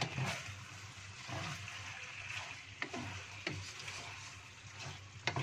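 Wooden spatula scraping and knocking against a wok, a few separate strokes, as chicken pieces in a thick, nearly cooked-down sauce are stirred over a steady low sizzle.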